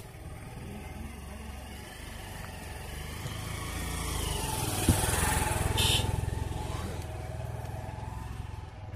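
A motor vehicle engine passing close by, growing louder to a peak about five seconds in and then fading, with a brief knock at the loudest point.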